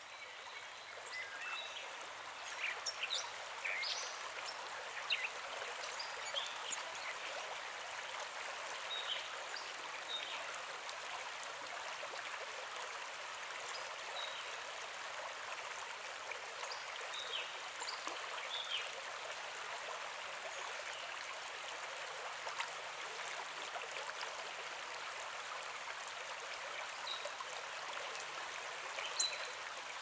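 Shallow forest stream running over rocks: a steady rush of water that fades in over the first couple of seconds. Short bird chirps are scattered through it.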